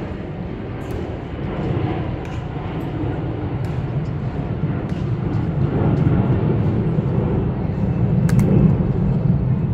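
Low, steady outdoor rumble that slowly grows louder, with a few faint clicks over it.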